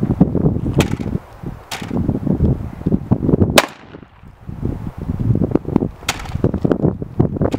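Four shots from a Saiga-12 semi-automatic 12-gauge shotgun fired at a tree, spaced one to two and a half seconds apart, the third the sharpest, over wind rumble on the microphone.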